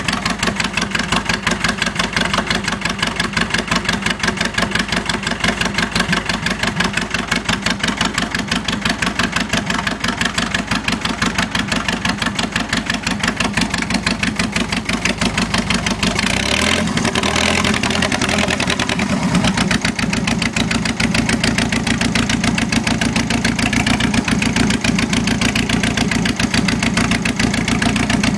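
International Harvester 584 tractor engine running steadily at low speed after a cold start, its firing pulses heard close to the vertical exhaust stack. About seventeen seconds in there is a brief rush of noise, after which the engine note sits higher and a little louder.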